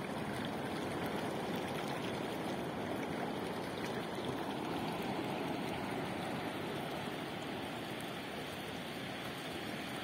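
Shallow water running and washing over pebbly sand at the shoreline: a steady rushing.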